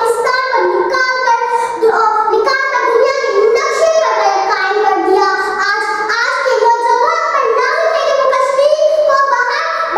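A young girl's high-pitched voice reciting aloud from a handwritten Urdu text in a sing-song, declaiming delivery, with long held and rising tones.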